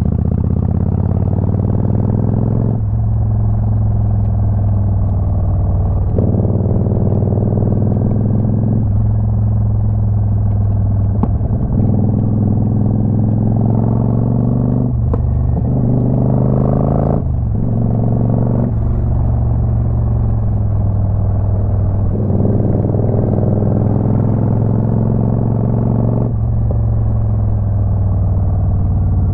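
Motorcycle engine running under way. Its note jumps to a new pitch every few seconds and slides between jumps, the pattern of speed changes and gear shifts.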